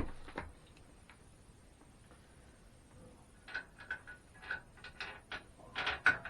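Light metal clicks and ticks, irregular, about a dozen in the last three seconds after a quiet spell: nuts and washers being fitted onto the carriage bolts that hold the miter saw to its stand.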